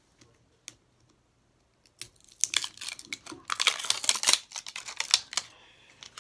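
Plastic Toy Mini Brands capsule ball handled in the hand: a few light clicks, then, starting about two seconds in, some three seconds of dense, rapid plastic clicking and rattling.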